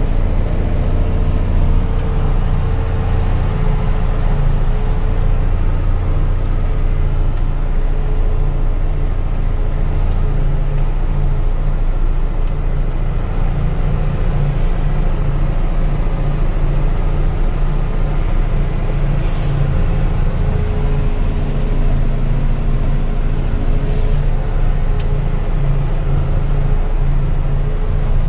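Truck engine running steadily under load, heard from inside the cab as it climbs a steep, rough dirt road, with a few short sharp sounds from time to time.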